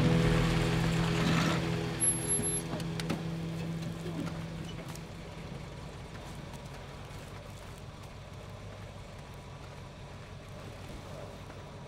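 First-generation Ford Mustang convertible pulling up and braking to a stop, with a hiss of tyres and brakes in the first second and a half and a brief high squeal about two seconds in. Its engine then idles faintly and steadily.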